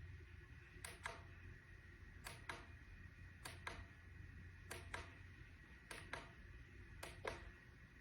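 A small button clicked over and over. Each press is a quick double click, press and release, coming about once every second and a quarter. A low hum runs underneath.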